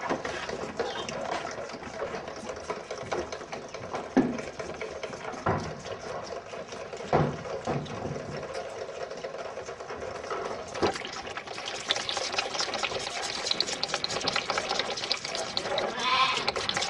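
Calves bawling, with a few sharp knocks between the calls and a rushing hiss in the second half.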